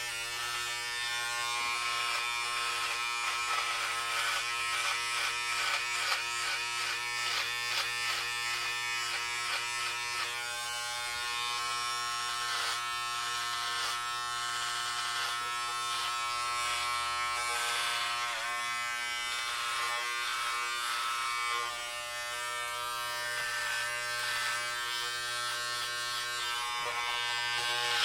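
Electric hair clippers running with a steady buzz while cutting hair. The buzz pulses and wavers in pitch as the blades work through the hair, with a brief dip in level about two-thirds of the way through.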